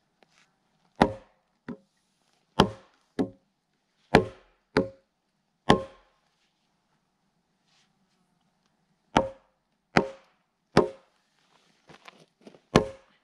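A heavy wooden mallet strikes the back of an axe head, driving the blade into the end grain of a log to start splitting it lengthwise. There are about eleven sharp knocks in two runs, with a pause of about three seconds between them.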